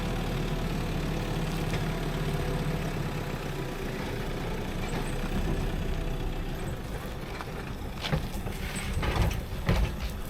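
A motor running steadily, with a few sharp knocks near the end.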